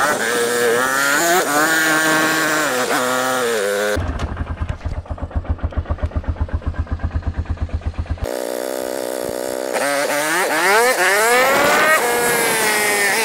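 FPV racing quadcopter's brushless motors whining, the pitch rising and falling with throttle. For about four seconds in the middle the whine gives way to a rapid low pulsing, several beats a second, before the rising and falling whine returns.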